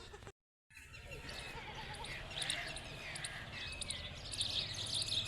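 Small birds chirping, many short falling calls that grow busier toward the end, after a brief dead silence about half a second in.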